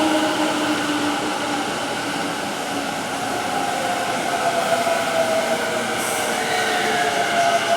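Tobu 50000 series electric train pulling out of the station: its traction motors whine in several tones that glide slowly in pitch, over the steady noise of the wheels on the rails.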